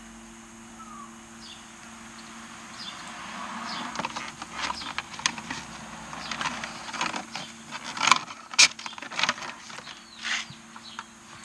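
Plastic A-pillar gauge pod being worked loose and pulled off the pillar of a VW MK4 GTI: a run of plastic clicks, knocks and handling noises that starts about four seconds in, with the sharpest clicks around eight to nine seconds in.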